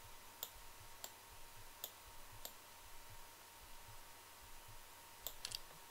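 About six computer mouse clicks, single and unevenly spaced, over faint room tone.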